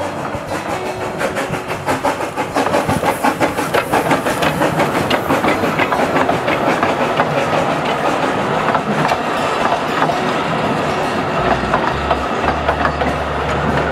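Narrow-gauge train carriages rolling past, their wheels clicking steadily over the rail joints and growing louder about two seconds in.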